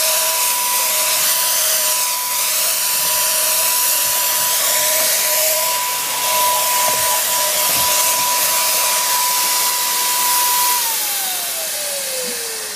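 Wagner Flexio 2000 handheld paint sprayer running while it sprays a deck, a steady hissing whine with a lower tone that comes and goes. About eleven seconds in the whine slides down in pitch and fades as the motor winds down.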